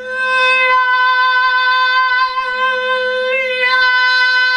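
A man sings a high note around B4 on one long, steady pitch in a blend of head and chest voice. His voice is not yet warmed up.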